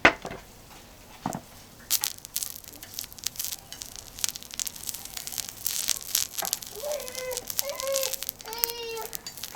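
Oil crackling and popping on a hot thick iron griddle being seasoned, in dense rapid clicks after a sharp knock at the start. In the last few seconds a young child's high-pitched voice makes several short wordless sounds over it.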